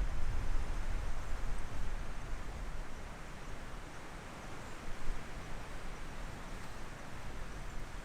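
Strong wind buffeting the microphone: a low gusting rumble over a steady rushing hiss, heaviest in the first few seconds and then easing.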